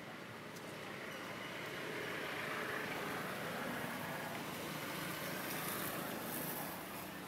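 Steady outdoor background noise with a low engine hum from distant traffic, swelling a little in the middle and easing off near the end.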